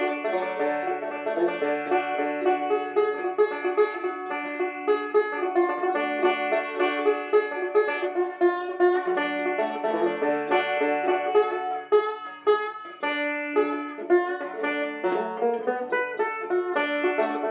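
Resonator banjo played solo, fingerpicked in a fast, continuous stream of rolling notes: a bluegrass banjo break.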